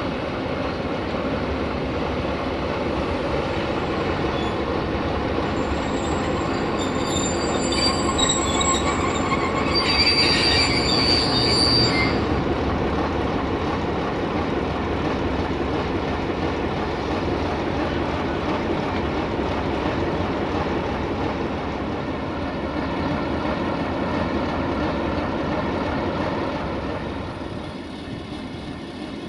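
Two coupled Romanian locomotives, an LE 5100 kW electric and a 060-DA (LDE 2100) diesel-electric, moving slowly while shunting, with a steady rumble of wheels and running gear. High-pitched wheel squeal, the loudest part, rises from about six seconds in and fades after about twelve seconds.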